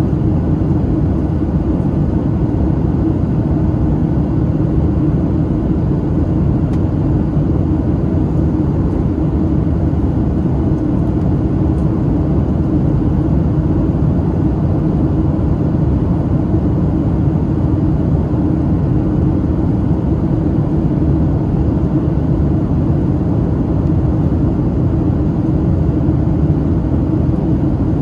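Steady low-pitched cabin noise of a Boeing 737-700 in flight, its CFM56 engines and rushing airflow heard from inside the cabin at a window seat by the wing. The noise stays even throughout.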